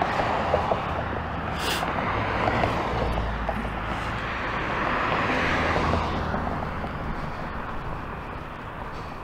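Road traffic: a passing vehicle's engine and tyre noise swells to a peak about five to six seconds in, then fades away.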